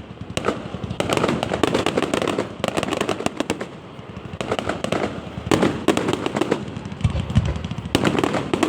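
Fireworks going off in a display: dense rapid crackling in repeated clusters, with a few deeper booms near the end.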